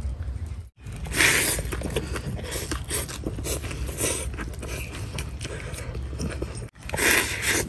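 A man slurping and chewing a mouthful of rice noodles (bún) with chopped chillies, with loud slurps about a second in, around four seconds in and near the end. The sound breaks off abruptly twice.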